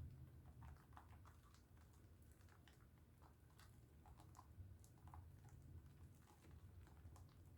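Dove soap bar being lathered with water: faint, irregular wet crackles and small squishy clicks over a low hum.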